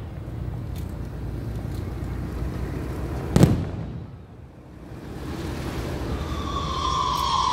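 Aerial fireworks: one loud shell burst bangs about three and a half seconds in over a low rumble, with a few faint pops earlier, then a shrill whistle starts near the end and holds, falling slightly in pitch, like a whistling firework climbing.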